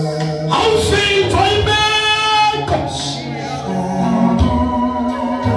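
Church worship singing: voices holding long notes over sustained low accompaniment notes that change chord a few times.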